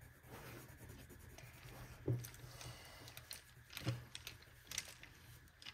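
Faint scratching of drawing strokes on paper, with a few soft knocks.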